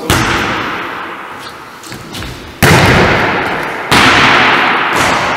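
A volleyball being bounced and struck: three sharp smacks, about a second apart and then a little over a second, the last two the loudest. Each one rings out in a long echo off the hall's hard walls and floor.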